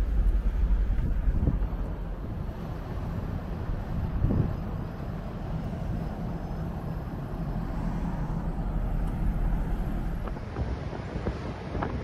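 Steady low engine rumble with wind buffeting the microphone, with a couple of brief louder swells.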